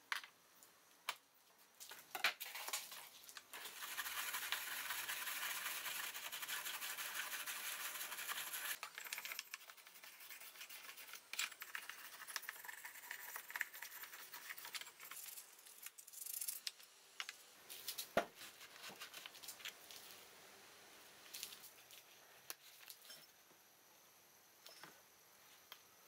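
Gloved hands handling and working small metal moka pot parts in a plastic tub: a steady hiss for several seconds near the start, then scrapes, light metal clinks and a sharp click.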